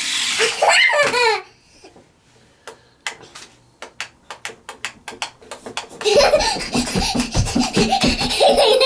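Loud laughter, a child giggling and laughing, starting about six seconds in after a quiet stretch of scattered clicks.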